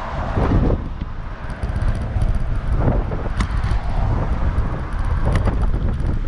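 Strong wind buffeting an action camera's microphone: a dense, fluttering low rumble, with a few light clicks over it.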